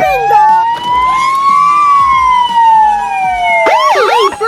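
Police siren wailing in one slow rise and fall in pitch. Near the end a burst of quick chirping glides cuts across it.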